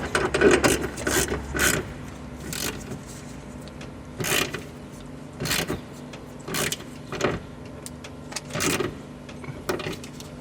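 Ratchet wrench tightening a seat-belt anchor bolt: short ratcheting bursts, one every second or so, as the handle is swung back and forth.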